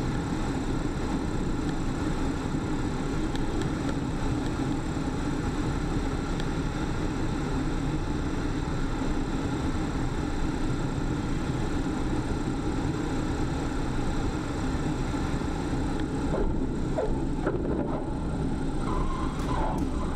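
Steady drone of a small single-engine propeller plane in low flight, heard from the aircraft itself: engine and propeller noise mixed with rushing airflow. Faint short tones come and go over it in the last few seconds.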